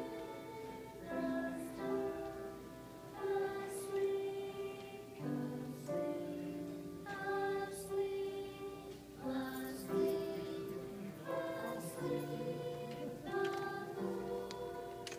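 A small group of Cub Scout children, joined by a few adults, singing a Christmas carol together in phrases of held notes.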